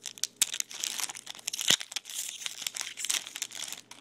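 Foil wrapper of a Topps Chrome trading-card pack crinkling as it is torn open and crumpled by hand, a dense crackle of many sharp little snaps that stops at the end.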